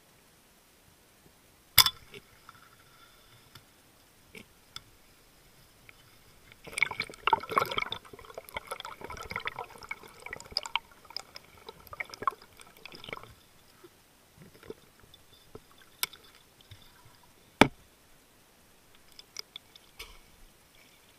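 Speargun firing underwater with a single sharp crack about two seconds in, followed by a spell of dense rattling and clicking and, near the end, another sharp crack.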